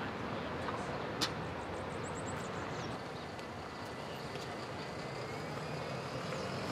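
Steady hum of distant city traffic, with a single sharp click about a second in and a quick run of faint high chirps about two seconds in.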